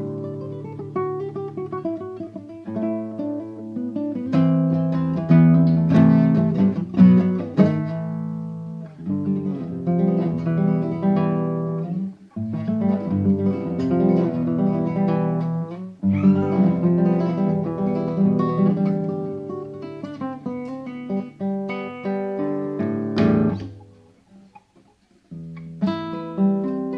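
Improvised solo guitar music, strummed chords mixed with picked single notes. Near the end the playing stops for about a second and then resumes.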